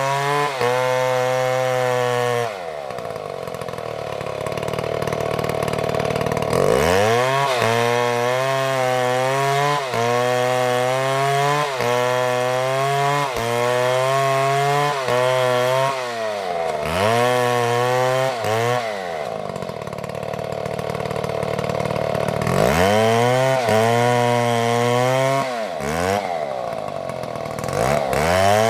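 Chainsaw engine running hard, repeatedly easing off and revving back up, with two longer spells at low revs.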